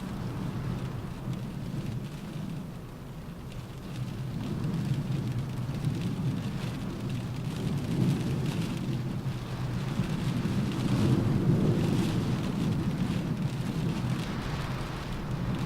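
Rain pattering on a car roof while wind gusts outside. A low rumble swells and eases, loudest about eleven seconds in.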